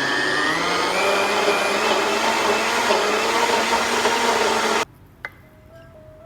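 NutriBullet blender running, grinding walnuts, coconut flour, cocoa and melted coconut oil, its whine rising a little in pitch early on. The motor cuts off sharply about five seconds in, followed by a single click.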